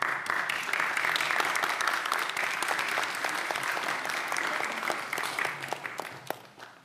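Crowd applauding, the clapping dense at first and dying away near the end.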